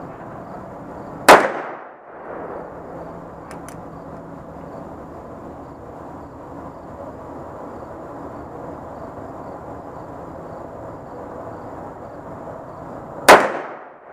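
Two shots from a Magnum Research BFR revolver in .45-70, about twelve seconds apart. Each is a single sharp report with a short fading tail. A couple of faint clicks come about two seconds after the first shot.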